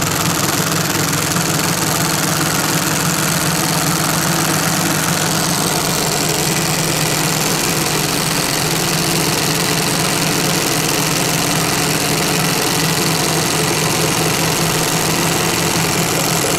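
Two cordless Makita impact drivers, a 40 V and an 18 V, hammering steadily as they drive screws into timber on their lowest soft mode, which drives slowly; the hammering stops abruptly at the very end.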